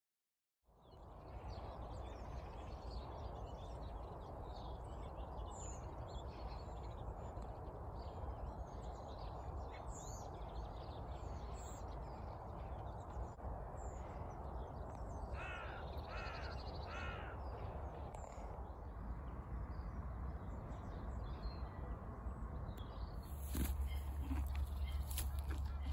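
Windy outdoor ambience, a steady rushing haze with low wind rumble on the microphone. A crow caws three times a little past the middle. Near the end the wind rumble gets much stronger, with a few clicks and rustles.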